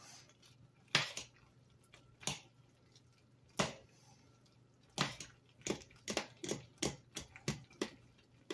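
Metal spoon stirring a pot of chicken and dumplings, clinking against the stainless steel pot: a few scattered clinks at first, then a quicker run of about three a second from about halfway through.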